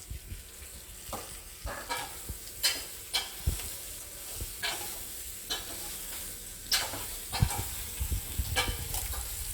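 A spoon stirring and scraping in a pot, with irregular knocks against the pot, as bottle gourd pieces are mixed into onions frying in oil. A steady sizzle runs underneath.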